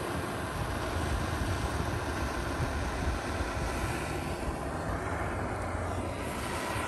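Handheld blowtorch flame running steadily against a paste-coated piece of cardboard, a continuous roar and hiss. The hiss dulls for a couple of seconds past the middle as the card is moved off the flame.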